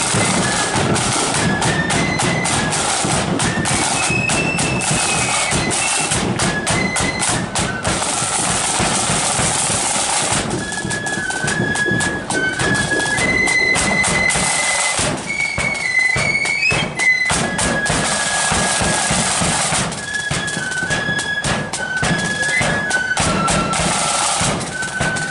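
Marching flute band playing: flutes carrying a high march melody in unison over fast side-drum strokes and bass drum beats.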